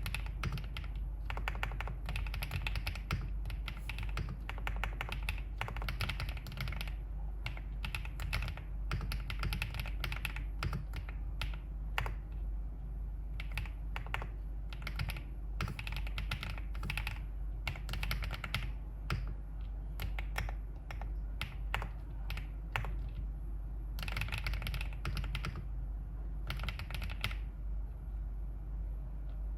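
Continuous typing on a Wave75 aluminium-case mechanical keyboard with Qingzhu (green bamboo) switches: quick runs of keystrokes broken by short pauses.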